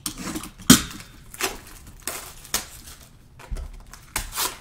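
Trading card boxes and packs being handled and opened: a series of short crinkles, taps and clicks, the loudest a little under a second in.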